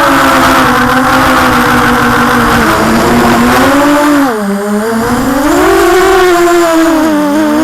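Storm SRD250 V3 racing quadcopter's brushless motors and propellers whining in flight, the pitch shifting with throttle: it drops about four seconds in, rises again, and dips once more near the end.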